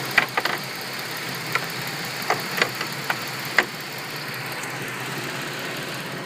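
Ford Edge's 3.5-litre V6 idling steadily with the hood open, with a handful of sharp clicks and knocks in the first four seconds as the hood is handled to be closed.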